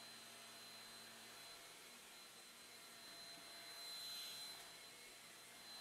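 Cordless stick vacuum running, its powered brush head pushed over a shag rug: a faint steady whir with a thin high whine, swelling briefly about four seconds in.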